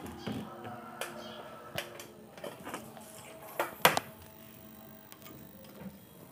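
Scattered clicks and knocks from a TV circuit board and tools being handled on a workbench, the loudest a sharp double knock about four seconds in.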